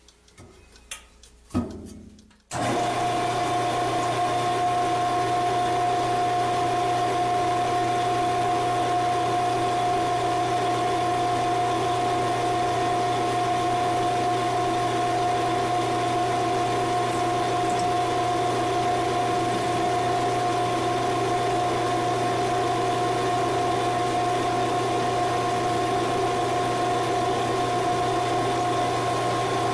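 Small, inexpensive benchtop metal lathe switched on after a couple of light clicks, starting abruptly about two and a half seconds in. It then runs steadily with its spindle turning, giving an even motor whine over a low hum.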